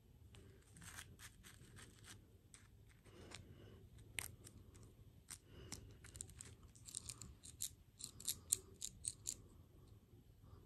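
Faint, irregular small sharp clicks and snaps, scattered at first, then a quicker run of louder ones about two-thirds of the way in.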